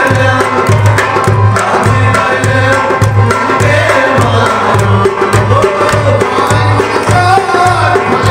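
A man sings a kalam in a sustained, melismatic style to his own harmonium, whose reeds hold steady tones under the voice. A drum keeps an even beat of about two strokes a second underneath.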